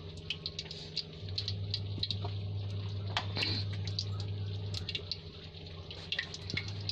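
Cooking oil in a kadhai heating on the stove for deep-frying, giving off scattered faint crackles and ticks over a steady low hum.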